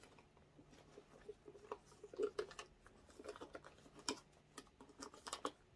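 Faint rustling and irregular light clicks as a small cosmetic pouch is pushed into the middle pocket of a pebbled-leather handbag.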